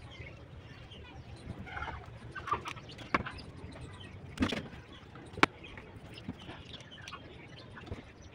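A few sharp clicks and taps from hands handling small craft pieces on the table, the loudest about five seconds in, with faint bird calls in the background.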